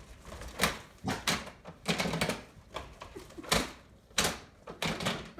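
A dog moving about near a door, its claws making an irregular run of short scratchy clicks and rustles, roughly one every half second to second.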